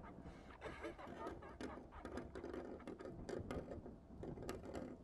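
Faint, irregular mechanical clicking and rattling sound effects over a low steady background hum.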